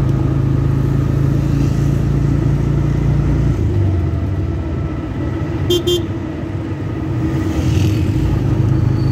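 A motor vehicle's engine running steadily; its note drops a little about three and a half seconds in. Two quick horn toots come about six seconds in.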